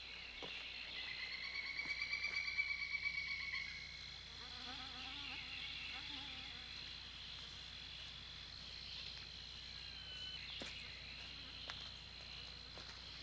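Quiet night-time insect chorus: a steady high-pitched chirring, joined by a louder, rapidly pulsing trill from about one to four seconds in, with a few faint clicks.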